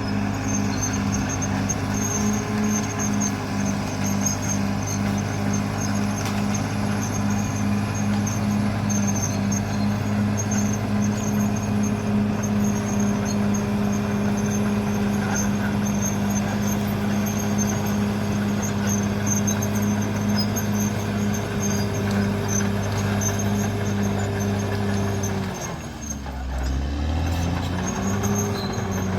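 Caterpillar D6R bulldozer's diesel engine running steadily at working speed; near the end its pitch drops sharply and then climbs back up.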